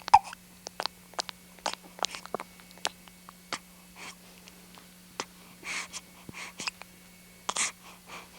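A small child's quiet breaths and short mouth clicks close to the microphone, with a sharper catch right at the start, over a steady low hum.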